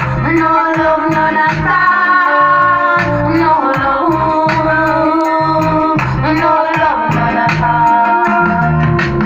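A song playing: singing over a steady bass beat.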